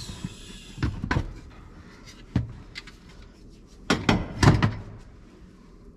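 Short plastic clicks and knocks as pull-tab fasteners and a trim cover in a Can-Am X3's cab are worked loose by hand. The knocks come singly at first, with a louder cluster about four seconds in.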